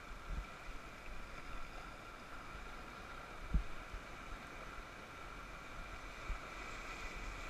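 Steady rush of river water as a raft runs choppy riffles, with a few low thumps, the loudest about three and a half seconds in.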